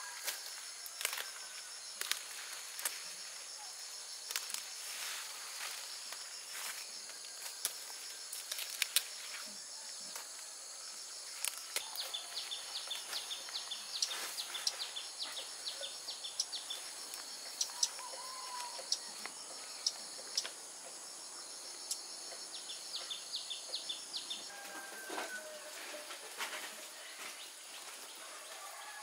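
Rural garden ambience: a steady high-pitched buzz of insects, with birds calling in quick runs of short chirps a few times. Scattered clicks and rustles of plants being handled are mixed in.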